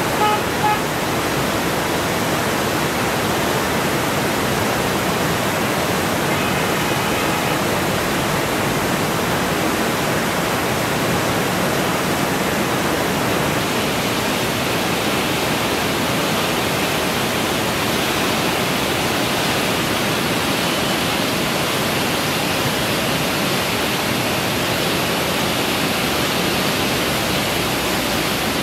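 Steady rushing of a river in flood, its muddy water surging high. The rush turns a little brighter about halfway through.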